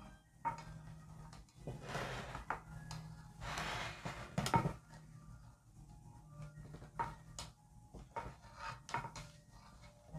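Kitchen utensils clinking against a dish, with two longer scraping, rubbing stretches about two and four seconds in, and scattered light clicks after them.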